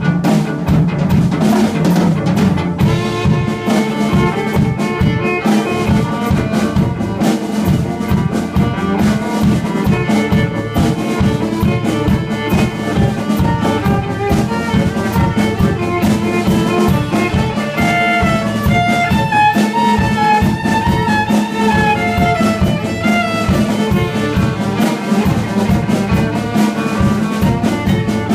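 Live band music: a violin carrying the melody over a bass and a drum kit keeping a steady beat. The melody climbs higher about two-thirds of the way in.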